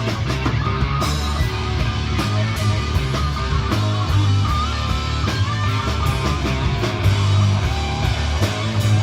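Rock music with guitar over a strong bass and a steady beat of sharp hits, with a melody line running through it.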